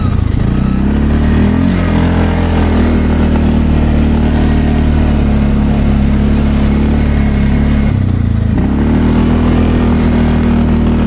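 Linhai Landforce 550L ATV's single-cylinder engine under way, revving up over the first couple of seconds and then holding steady. Near eight seconds the revs drop briefly, then climb again.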